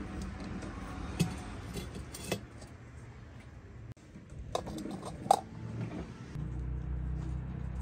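Steel cookware being set down: a wire pot stand, then a karahi with a perforated steel colander on top, giving a few sharp metallic clanks, the loudest about five seconds in ringing briefly.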